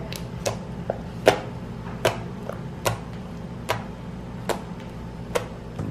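White slime being kneaded and squeezed between the fingers, giving sharp little pops about once a second, over a steady low hum.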